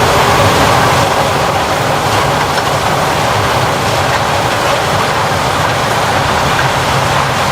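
Heavy harvest machinery running steadily at close range: a loud, even mechanical drone with a low engine hum and rattling from the machine. It drops away abruptly at the very end.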